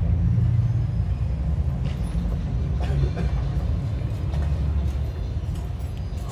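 Low, steady rumble that swells and eases a little but never stops.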